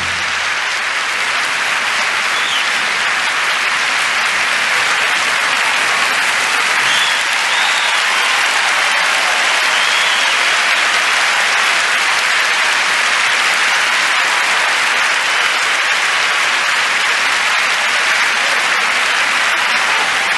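Large audience applauding, steady and sustained, with a few short whistles among the clapping.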